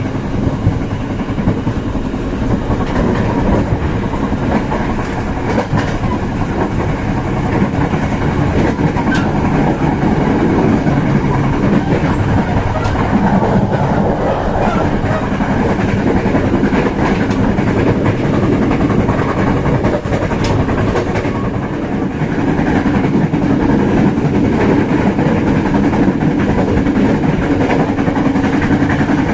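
Passenger train running along the track, heard from inside the carriage: a steady, loud rumble of wheels on rails with a few faint clicks from the rail joints.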